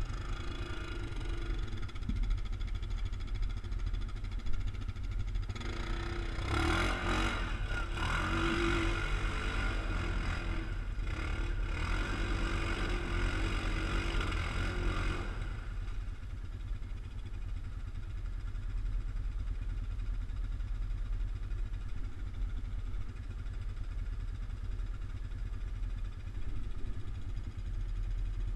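ATV engine idling with a steady low rumble. From about six to fifteen seconds in, a louder stretch of engine revving rises over it, then settles back to the idle.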